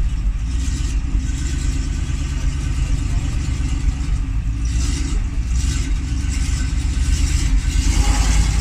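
Ural truck's engine running steadily under load as the truck wades through deep water, with the tyres churning and sloshing water.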